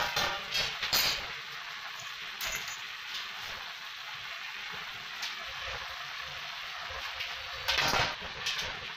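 Light metallic clinks and knocks as a bent steel tube frame is handled and set down on a concrete floor, a few in the first second and a louder clatter about eight seconds in, over a steady hiss.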